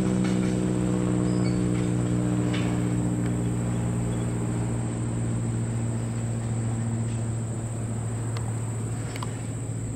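Freight train of tank cars rolling on past, a steady low drone slowly fading, with a click or two from the wheels. A steady high insect trill runs under it.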